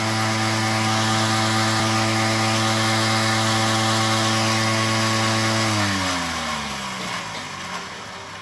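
Cotton candy machine's copper spinner head, driven by its motor from a battery charger, spinning at speed with a steady hum and whirring hiss. It runs smooth and well centred. About six seconds in the power is cut and it spins down, the hum falling in pitch and fading.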